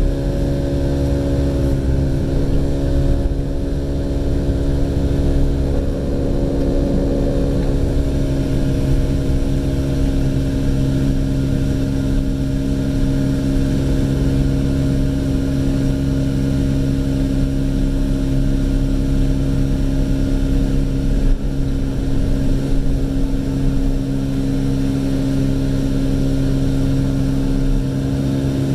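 Car engine running steadily with a constant drone and low road rumble while driving, heard from inside the closed cabin.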